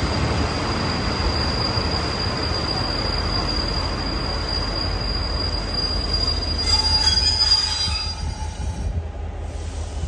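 Taiwan Railways' old blue ordinary-train carriages braking into a station, heard through an open window. The rolling rumble carries a steady high-pitched brake squeal, which grows louder about seven seconds in. Then the train comes to a stop and the noise drops away.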